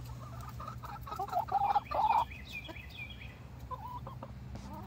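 Backyard hens clucking softly: a series of short, low calls, then a run of higher, quicker notes about two seconds in.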